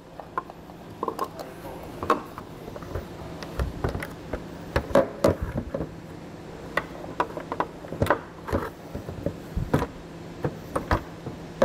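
Irregular plastic clicks and knocks as a car's taillight assembly is handled, fitted into its body opening and pressed into place, over a steady low hum.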